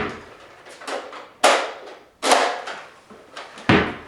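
A series of sharp thuds or knocks, about five, unevenly spaced, each ringing out briefly in the room.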